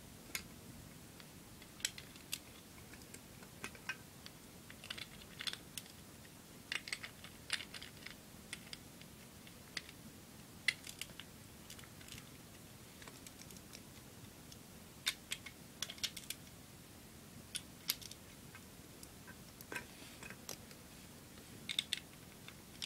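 Plastic Lego bricks clicking together as they are handled and pressed on by hand, in scattered, irregular sharp clicks.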